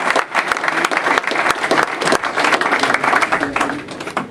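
A roomful of people applauding, dense clapping that thins out and fades near the end.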